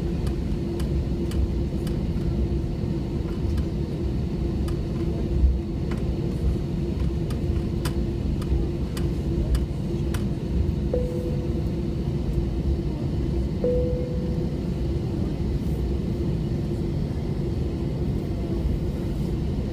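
Airliner cabin noise inside an Airbus A321: a steady low rumble with a steady hum and scattered light rattles, and two short beeps a little past halfway.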